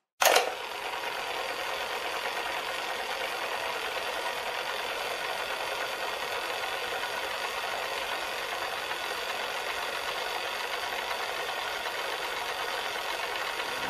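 Steady, fast mechanical whirring with a fine rattling texture, starting suddenly just after a brief silence.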